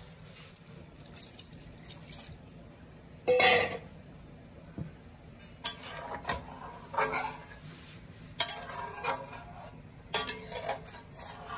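Water poured with a brief splash into an aluminium kadhai of fried masala chicken about three seconds in. From about halfway, a metal spatula stirs and scrapes against the pan in a run of short, irregular strokes.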